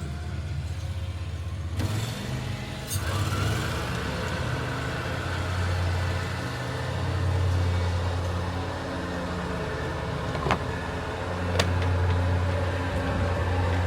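An engine idling steadily, its low hum swelling and easing a little, with two sharp clicks in the second half.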